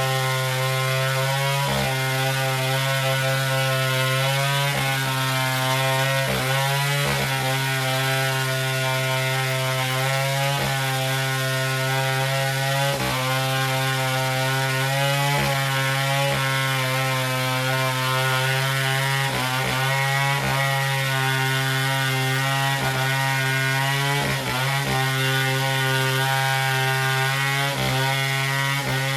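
Chainsaw engine running steadily at high speed, its pitch dipping briefly every few seconds as the chain bites into the wood.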